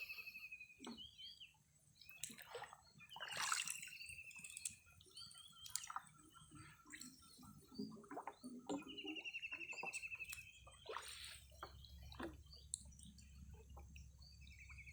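Shallow water sloshing and dripping in irregular bursts, typical of gill nets being handled in a canal. A high, fast trill about a second long repeats every few seconds.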